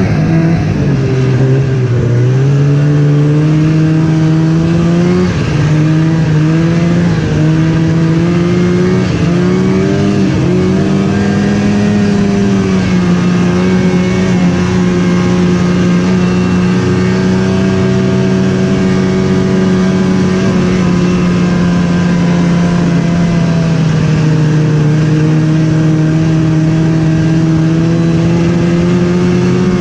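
Snowmobile engine running under way, its pitch rising and falling a little with the throttle for the first dozen seconds, then holding mostly steady.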